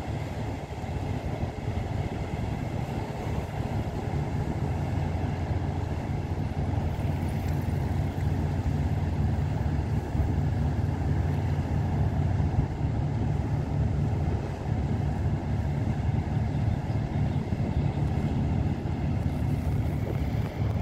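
Tugboat diesel engine running steadily under load as it pushes a houseboat, a low drone that grows a little louder over the first several seconds.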